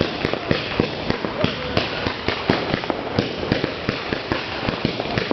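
Fireworks going off in a dense run of sharp, irregular cracks and pops, several a second, without a break.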